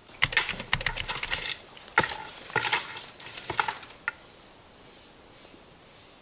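Close rustling and crackling for about four seconds, a quick run of sharp crinkles and snaps with some low rumble, which then stops.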